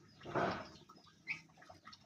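A brief rustling burst about half a second in, then a short, clipped call from a sooty-headed bulbul (kutilang) a little after the middle.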